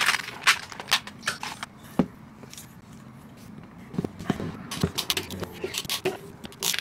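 Brass PEX fittings, clamps and tools being handled during plumbing assembly: a scatter of sharp clicks and short scrapes, quieter for a couple of seconds in the middle and busy again toward the end.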